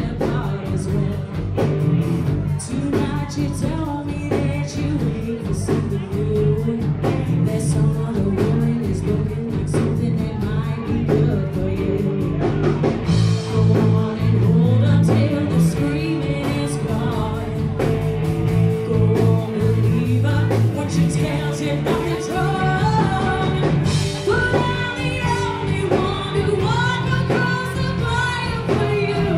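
Live rock band playing a bluesy rock song: a woman singing lead over electric guitar, electric bass and drum kit.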